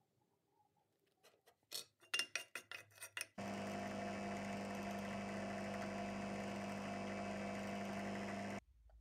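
A run of sharp metallic clinks as small aluminium pieces are handled, then a drill press motor starts up and runs at a steady speed with a constant hum, cutting off abruptly near the end.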